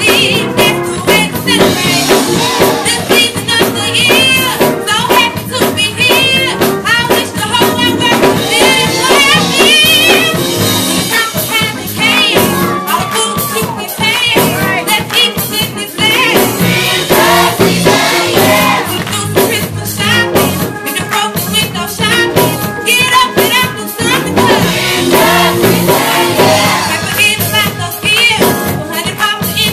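Youth gospel choir performing live: a teenage girl sings lead into a handheld microphone over the choir, with hand-clapping and instrumental accompaniment keeping a steady beat.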